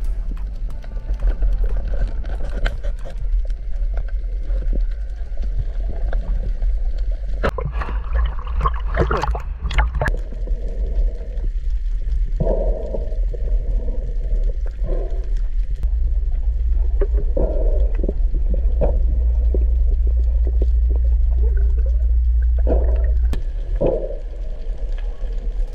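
Underwater sound picked up by a camera in its waterproof housing: a steady low rumble of moving water with irregular bursts of gurgling.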